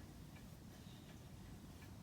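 A clock ticking faintly and evenly, about one tick every three-quarters of a second, over a low steady hum.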